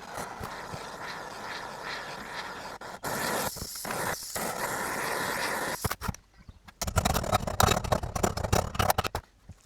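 A steady hiss for about six seconds, louder from about three seconds in, followed by a stretch of irregular knocks and clatter from hand work in a workshop.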